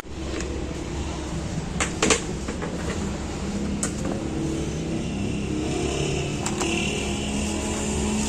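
Steady street background hum with traffic, broken by a few short sharp knocks or clicks.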